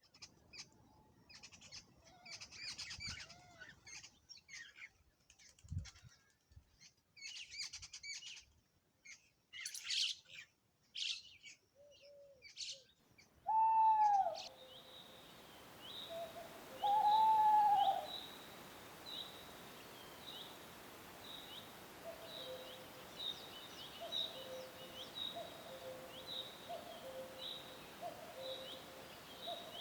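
Wild birds singing and calling: a flurry of high chirps and twitters at first, then, over a steady hiss, two loud arched calls and a run of short, high, repeated calls about once a second with lower notes between them.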